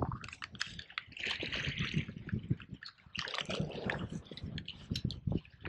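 Water splashing and sloshing in short irregular bursts as a hooked fish is played at the surface and brought to the net.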